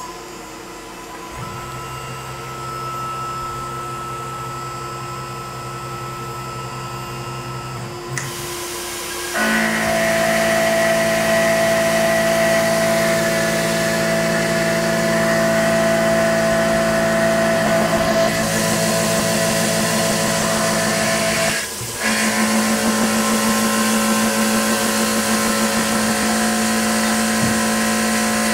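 Tormach PCNC 1100 CNC mill running a 3/4-inch four-flute carbide end mill through a 30-thou skim cut across steel rod, a steady whine of several held tones. The spindle runs more quietly at first; the cut begins about nine seconds in and the sound gets louder. It breaks off briefly about two-thirds of the way through, between the two width passes, then carries on.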